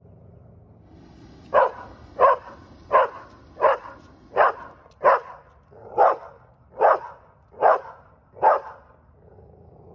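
Standard Schnauzer barking: a big bark repeated ten times in a steady series, starting about a second and a half in, roughly one bark every three-quarters of a second, then a short pause near the end.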